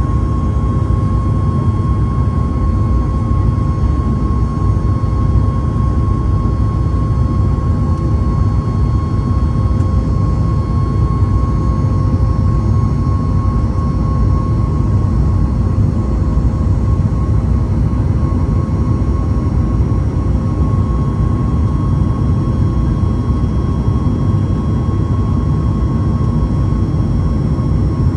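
Cabin noise beside the wing of a Boeing 737 MAX 8 in climb: the CFM LEAP-1B turbofan's steady deep rumble, with a constant hum on top.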